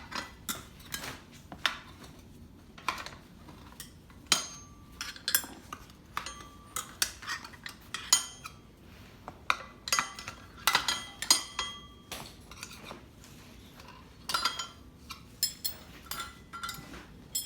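Metal tire spoons clinking and scraping against a dirt bike's spoked wheel rim while the tire bead is levered off: an irregular run of sharp metallic clicks, some with a short ringing tone.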